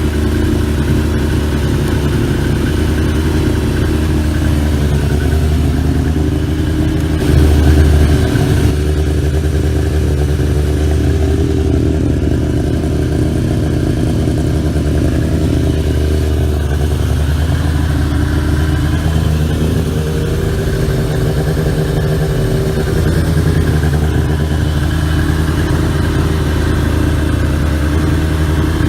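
Yamaha YZF1000R Thunderace's 1000 cc inline-four engine running steadily at idle, briefly louder about eight seconds in.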